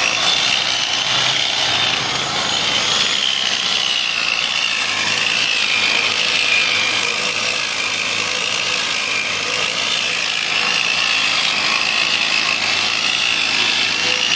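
Electric abrasive rail-cutting machine's cut-off disc grinding steadily through a steel railway rail: a continuous high screech whose pitch wavers slightly as the disc bites.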